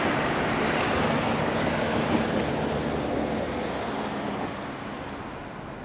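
Steady outdoor background noise of wind and distant traffic, easing down in level over the last couple of seconds.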